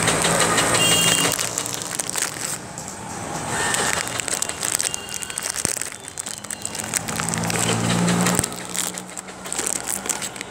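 Rustling, scraping handling noise from a phone camera being moved about close to the ground, over street noise, with a low engine-like hum rising for a second or so near the end.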